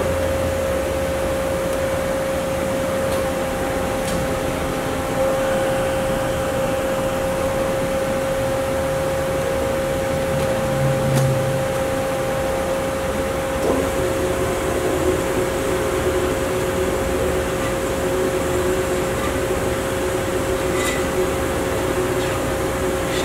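Hyd-Mech S-20A miter horizontal band saw running after being switched on: a steady machine hum with a constant whine, and the head's hydraulics working as it rises and swings to a miter angle. The pitch shifts lower about 14 seconds in.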